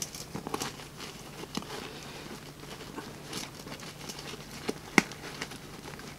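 Hands handling the fabric and webbing of a Vanquest Trident 20 backpack: soft rustling with scattered light clicks, and one sharper click about five seconds in.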